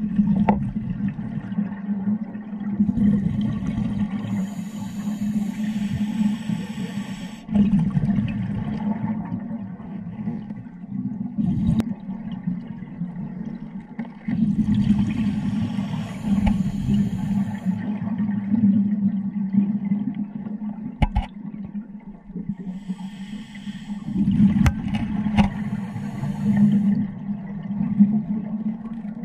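Scuba diver's regulator breathing underwater: a long hiss of inhalation with bubbling exhalation, coming back about every ten seconds. Under it runs a steady low rumble of water against the camera, and there are a few sharp clicks.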